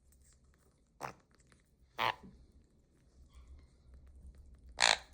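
Pet conure parrot giving three short, harsh calls: about a second in, again a second later, and once more near the end.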